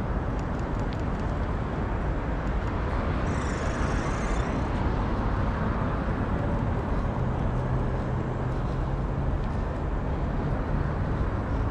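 Steady outdoor road-traffic noise, with a low engine hum joining about seven seconds in and fading near the end.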